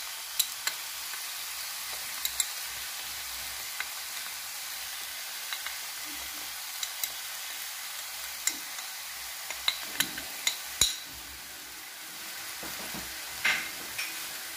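Minced meat and chopped onions frying in a nonstick pan: a steady sizzle with scattered sharp crackles, a few close together about two-thirds of the way through.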